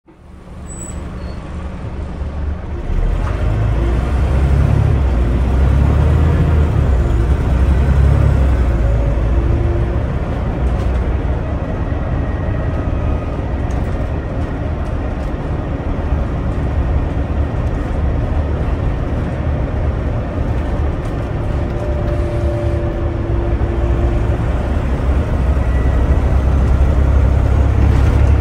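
Scania OmniDekka double-decker bus heard from on board while it is driven: steady engine and road noise with a deep rumble, rising over the first few seconds.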